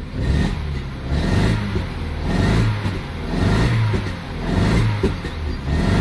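Vauxhall Astra H's Z14XEP 1.4-litre four-cylinder petrol engine, heard from inside the cabin, revved lightly in repeated blips about once a second and running rough with a misfire. One cylinder has no compression, which the mechanic puts down to a faulty valve.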